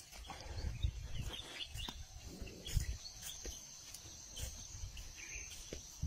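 Morning jungle sounds: short bird chirps over a steady high insect drone, with irregular low thumps and rustles as an Asian elephant moves close by.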